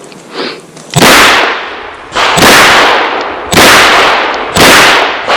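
Four handgun shots about a second apart during a shooting stage, each a sharp crack with a short ringing tail.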